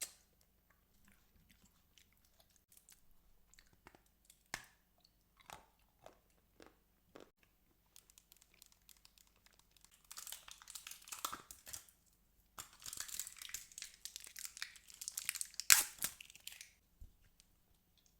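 Close-miked chewing, with soft scattered mouth clicks and small bites at first, then long stretches of loud, crisp crunching from about ten seconds in, the loudest crunch near the end.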